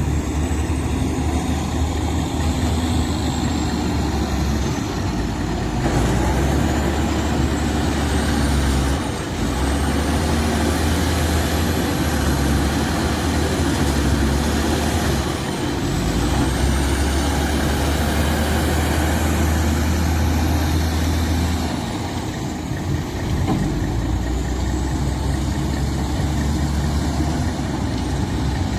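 Caterpillar 950E wheel loader's diesel engine running and revving up and down in repeated cycles as the loader works, with a high whine that rises as it revs and drops as it eases off.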